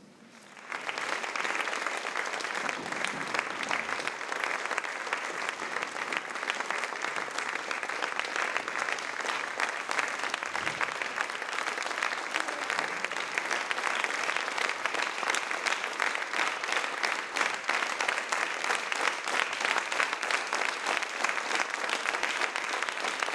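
Theatre audience breaking into applause just under a second in, then dense, steady clapping throughout.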